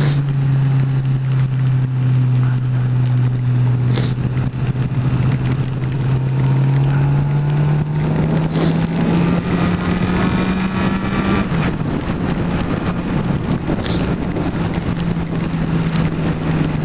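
Motorcycle engine running at highway speed, heard on board over wind noise. Its steady drone climbs slowly in pitch as the revs build for about eleven seconds, then drops back.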